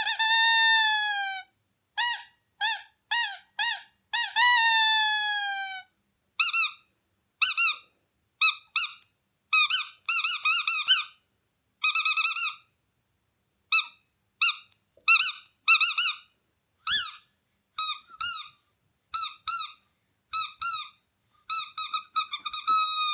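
Squeaky dog toy squeaked over and over. It starts with long drawn-out squeaks and a few short ones. About six seconds in, the squeaks turn slightly higher and shorter, many coming in quick runs, with brief silent gaps between.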